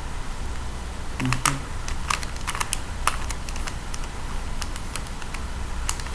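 Plastic clicking of a Rubik's Cube's layers being twisted by hand, in quick irregular runs that are busiest in the first half and thin out later.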